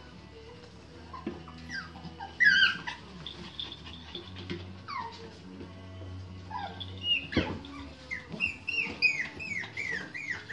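Pomeranian puppies yipping and whining in short, falling high-pitched cries, with a quick run of yips near the end and a single knock a little past the middle, over background music.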